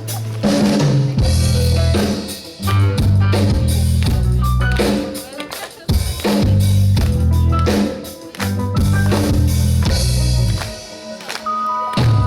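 Band playing an instrumental passage with no vocals: drum kit with bass drum and snare, a heavy bass line, and short melodic notes above, with brief drops between phrases.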